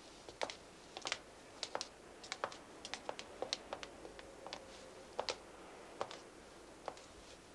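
Footsteps of two people walking on a hard floor: a quick, irregular run of sharp heel clicks.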